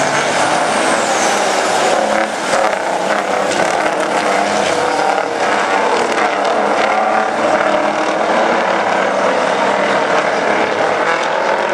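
Big-rig semi-tractor race trucks running laps around a short oval, their engines loud and steady throughout.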